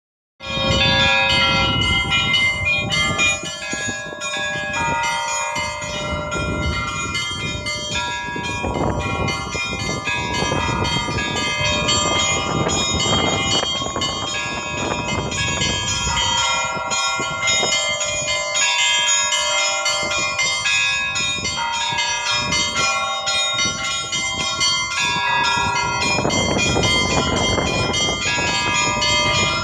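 Russian Orthodox church bells ringing together: several bells of different pitches, small high ones and deeper larger ones, struck over and over so that their tones overlap and ring on.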